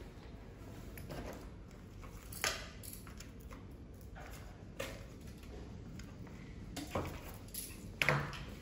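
A few light clicks and knocks, four or so spread over several seconds, as a 2068 carbon-fibre propeller is handled and set onto its motor mount.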